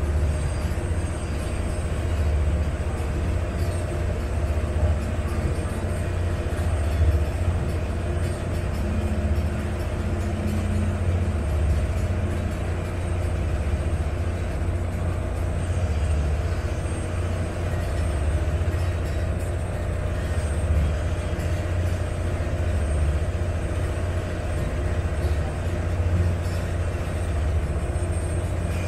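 Steady low drone of a Venetian water bus's diesel engine, heard from its open rear deck, with an even hiss of wind and water over it.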